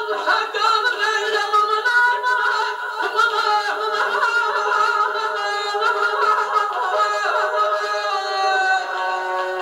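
A man singing through a handheld microphone, in long held notes that waver and slide in pitch.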